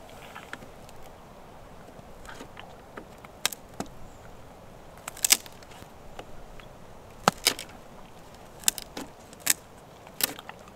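Scattered sharp clicks and knocks at irregular intervals, about a dozen in all, the loudest about five and seven seconds in.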